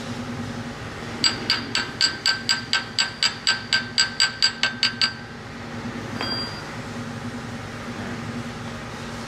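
A hammer tapping quickly and evenly on a metal part, about four light strikes a second for roughly four seconds, each one ringing. A single metallic clink follows a second later.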